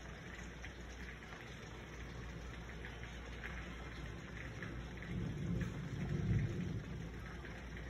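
Steady rain falling, with scattered drops ticking close by. About five seconds in, a low rumble of thunder swells up and fades away before the end.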